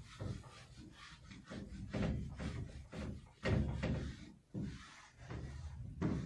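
Whiteboard eraser wiped back and forth over a whiteboard: a series of irregular rubbing strokes, some louder than others.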